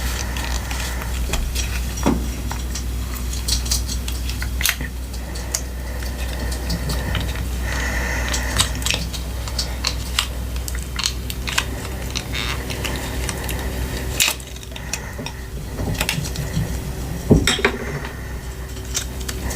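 Glitter glue slime mixture being stirred in a bowl, a utensil scraping and clicking irregularly against the bowl's side.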